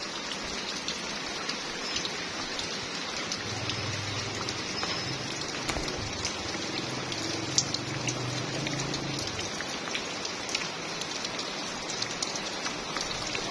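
Steady rain falling on wet ground and puddles, a constant hiss with the patter of individual drops.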